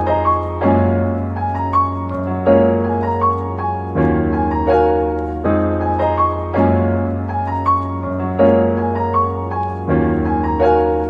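Background piano music: a gentle keyboard melody of struck notes over sustained bass, with the chords changing about every two seconds.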